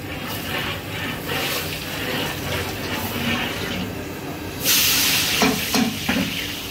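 Hot ghee sizzling steadily in a large aluminium pot, then about four and a half seconds in a loud hissing sizzle bursts out as sliced onions are tipped into the hot ghee, followed by a few low knocks.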